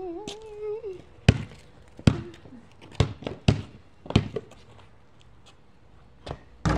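Basketball bouncing on a concrete driveway: about five sharp, irregularly spaced bounces in the first four seconds, then fewer. A brief gliding voice-like sound comes at the very start.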